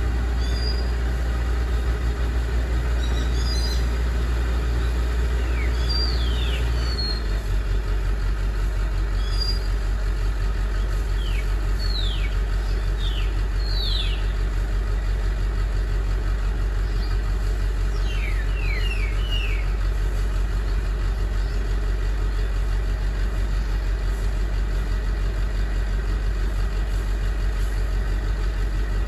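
Excavator's diesel engine running steadily, its low hum dropping to a lower, quieter note about seven seconds in. Short, high, downward-gliding chirps come in small groups at several points.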